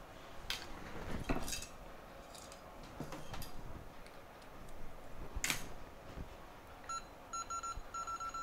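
A few small clicks and clinks of tools being handled, then from about seven seconds in a rapid electronic beeping from the rework station as its temperature is being raised.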